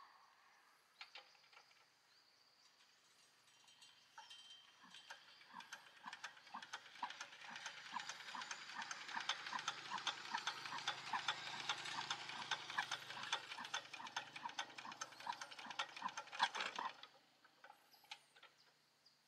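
Rapid, regular mechanical clicking at several clicks a second, building up in loudness over a few seconds and then stopping abruptly near the end.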